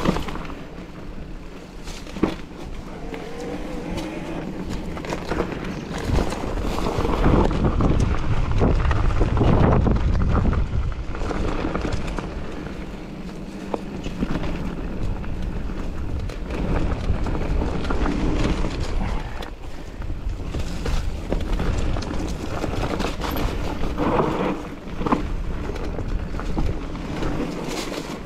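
Mountain bike being ridden along a trail: wind buffeting the microphone and tyres rumbling over the ground, with scattered clicks and rattles from the bike. The rumble swells for a few seconds partway through.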